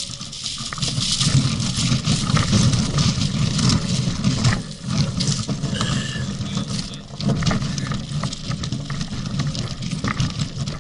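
A bicycle being pushed over gravel railway ballast and sleepers: a continuous rumble and crunching stones, rattling through the bike-mounted camera.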